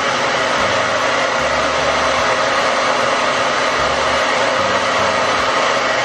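Handheld hair dryer running steadily on high, blowing on a wet cat's fur to dry it after a bath.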